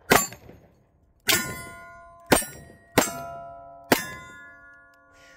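Five revolver shots at about one-second intervals. After each of the last four, the hanging steel targets ring with a clear metallic tone that fades slowly and overlaps the next.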